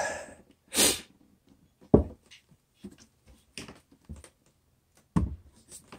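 A man grunting and exhaling as he lifts and tilts a heavy metal DAC/amplifier, with two sharp thumps, about two and five seconds in, as the unit's feet knock down on a wooden table, and small knocks and handling noises between.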